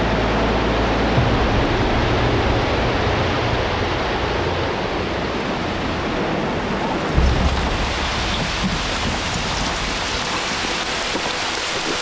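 Collapse of a World Trade Center tower as its debris and dust cloud sweeps over the microphone: a loud, dense, steady hiss with a deep rumble in the first second and a low thump about seven seconds in.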